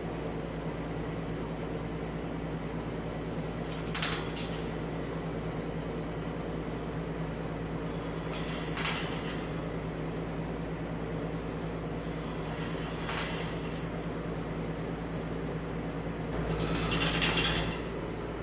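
Female eclectus parrot working her beak against the metal bars of her cage: four short scraping rattles several seconds apart, the last the longest and loudest, over a steady low hum. This is the nesting female's head-shaking gesture meant to get her human to regurgitate for her.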